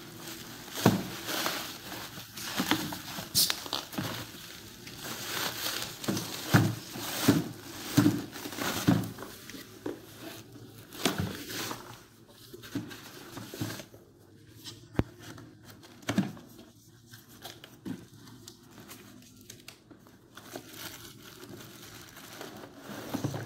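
Bubble wrap and plastic packaging crinkling and rustling as a boxed item is unwrapped and lifted out of a cardboard carton, with scattered knocks. The handling is busy for the first half, then turns quieter and sparser.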